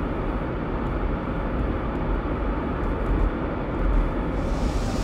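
Steady low rumble of tyre and engine noise heard inside a moving car's cabin.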